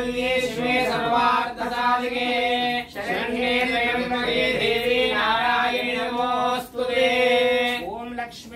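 Melodic chanting of Sanskrit mantras, with long held, gliding notes over a steady drone.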